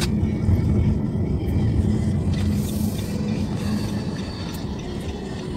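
Car driving, a steady engine and road rumble heard from inside the cabin, with a brief hiss about two and a half seconds in.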